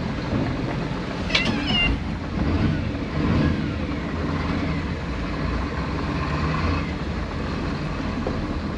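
Twin Detroit Diesel inboard engines of a cruiser running under way, a steady low drone with hull and water noise, while the boat is losing power from what the crew takes for a fuel delivery issue. A brief high squeak comes about a second and a half in.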